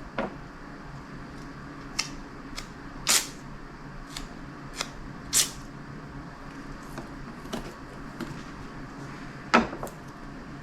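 Plastic trunk latches being set in place and tape pulled for taping them down: scattered light clicks and taps, with two short rasps about three and five seconds in.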